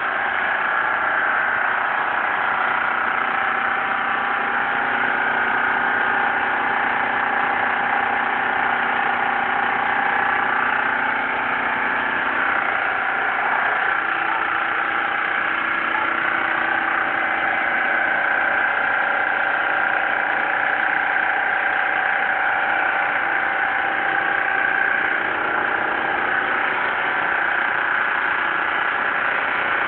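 Boat engine running steadily, a constant drone that holds its pitch throughout.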